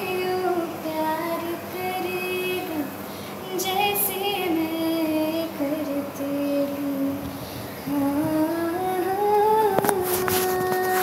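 A woman's voice singing unaccompanied, holding long notes that slide slowly between pitches, with a few sharp clicks near the end.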